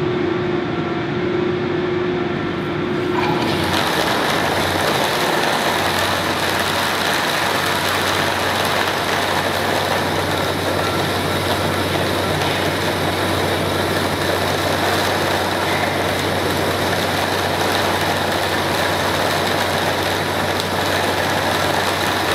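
High-pressure pump running, pushing water through a frac-sleeve test string: a steady low hum under a loud rushing hiss that comes on about three seconds in and then holds steady.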